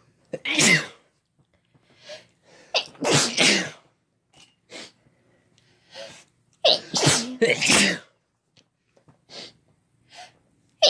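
A person sneezing hard three times, each sneeze a loud sudden burst about three seconds apart, with short sharp in-breaths between them.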